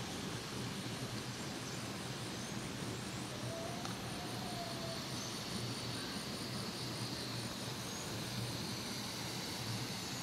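Steady rushing of a stream over a small waterfall, with a few faint bird whistles and chirps on top.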